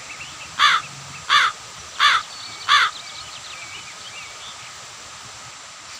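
A bird calling four times in a steady series, one call about every 0.7 seconds, with faint chirps of smaller birds in the background.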